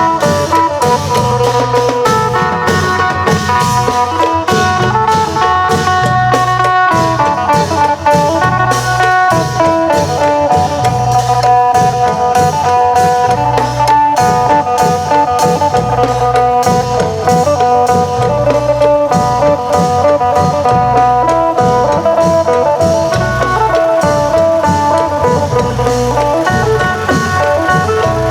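Isan phin (plucked lute) playing a melody over a steady beat of klong yao long drums and percussion.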